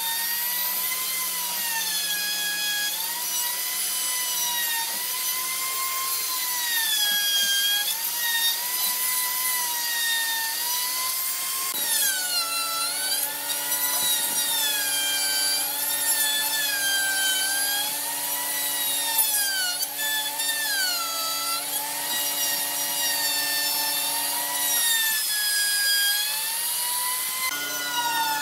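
Handheld plunge router running with a high whine whose pitch sags and recovers again and again as the bit cuts butterfly-key recesses into softwood boards. The sound jumps abruptly twice.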